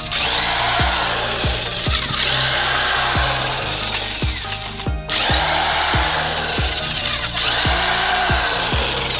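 A power tool running steadily, with a steady beat of background music underneath; the sound breaks off briefly about five seconds in and then resumes.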